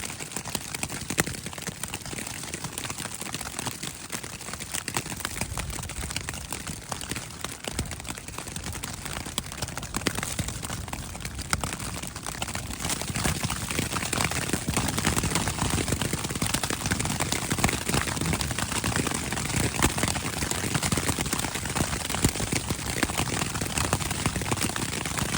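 Hail and rain hitting the tent, a dense patter of countless small impacts that gets heavier about halfway through.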